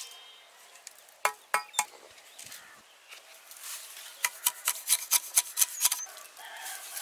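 A series of sharp knocks: three about a second in, then a quick run of about ten, roughly five a second, a few seconds later.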